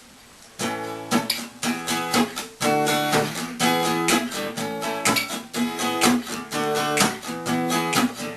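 Acoustic guitar strumming chords in a steady rhythm, coming in about half a second in after a short quiet gap.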